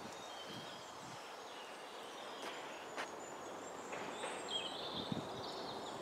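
Quiet woodland ambience: a faint steady hiss with thin, high bird calls about half a second in and again from about four to five seconds in, and a couple of soft clicks near the middle.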